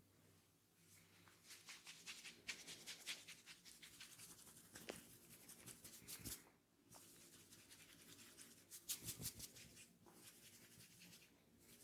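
Fingers scratching and rubbing through hair on the scalp in a head massage: faint, dense crackling in two longer spells, with a soft thump about six seconds in.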